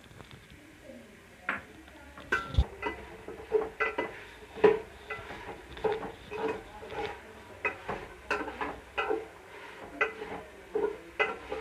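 A metal spoon stirring food in a metal cooking pan, scraping and knocking against the pan one or two times a second from about a second and a half in.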